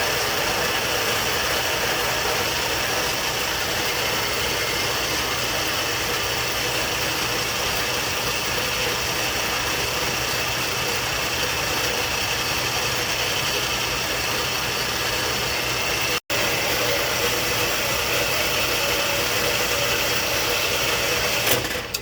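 Metal-cutting saw running steadily through a cut in steel bar stock, a continuous even noise with a steady hum, stopping just before the end.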